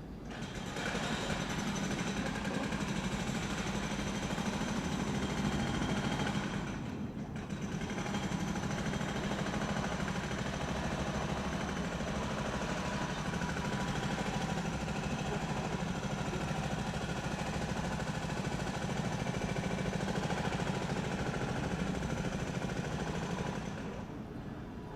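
Construction machinery hammering in rapid, steady strokes over a low hum, easing off briefly about seven seconds in and stopping shortly before the end.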